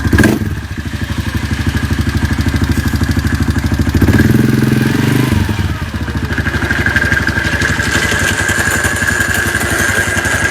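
Wolverine 450 ATV engine running at idle with a steady rapid pulse. It briefly runs louder for about a second and a half midway, and a high steady whine grows stronger in the second half. This is the clutch noise that the owner hears only when the primary clutch is under tension, despite new one-way and shaft bearings.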